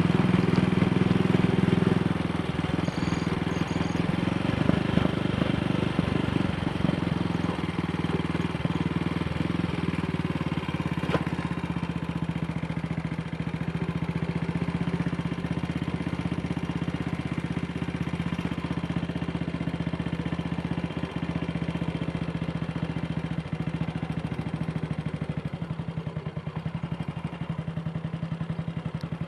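AJS Model 8 motorcycle engine running steadily on the road, a little louder for the first couple of seconds, with no misfire or pops: the fault, a dislodged carburettor needle clip, has been put right.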